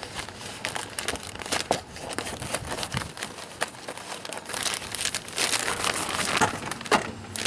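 Crinkling and rustling of packaging as a new cabin air filter is pulled out of it, in irregular crackles.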